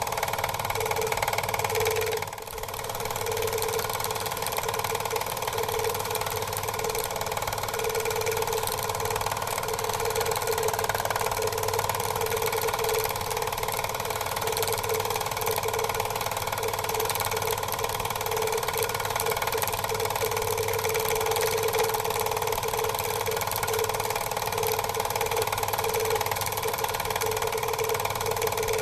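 Quadcopter drone's electric motors and propellers humming steadily, picked up by its onboard camera, with a brief dip about two seconds in.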